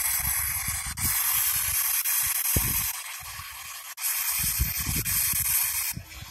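P-SB7 spirit box sweeping through radio frequencies: a steady hiss of static whose character changes abruptly every second or few as it jumps between stations, with short broken low sounds underneath.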